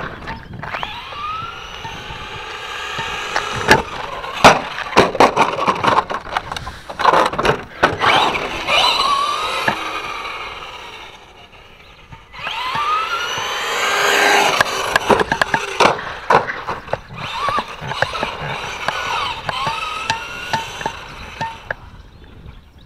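Electric RC truck's 12-turn brushed motor whining up in pitch each time it accelerates, several runs one after another, with tyres scrabbling on dirt and sharp knocks from landings and impacts, most of them in the first half.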